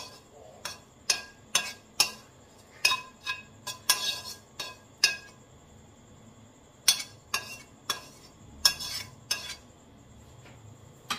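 A spatula scraping and knocking against a frying pan as cooked shredded chicken is scraped out onto a plate: a string of sharp metallic clinks and scrapes, about two a second, with a pause of a second or two in the middle.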